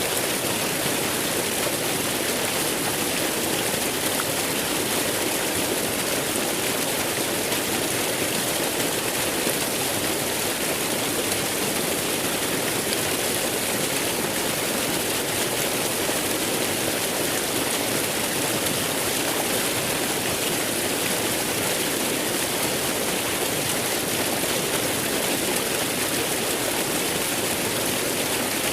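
Waterfall: falling water rushing steadily, with no change.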